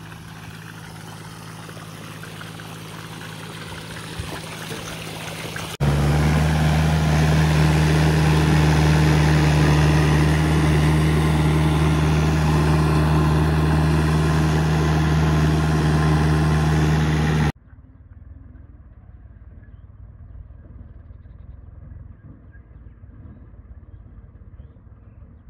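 Mahindra tractor's diesel engine running steadily while puddling a flooded paddy field. About six seconds in, it cuts to a much louder, closer engine sound for about twelve seconds. Then it drops abruptly to a faint low rumble.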